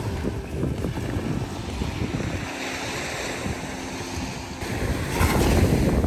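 Small waves lapping and washing up a sandy beach, with wind buffeting the microphone; a louder wash of surf comes in about five seconds in.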